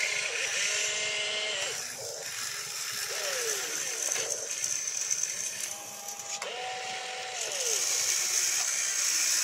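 Electric motors and gearboxes of an RC excavator whirring as the arm digs and swings. The whine rises and falls in pitch in short strokes, with a couple of longer held runs.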